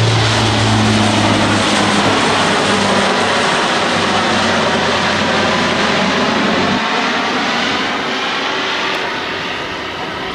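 C-130J Hercules at takeoff power: the loud drone of its four Rolls-Royce turboprops and six-bladed propellers. A low propeller hum drops out about seven seconds in, and the sound then slowly gets quieter.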